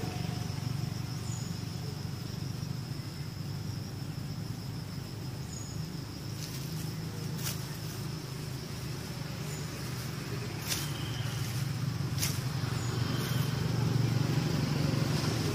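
Outdoor ambience: a steady low rumble under a thin, steady high insect drone, with a few sharp clicks in the second half.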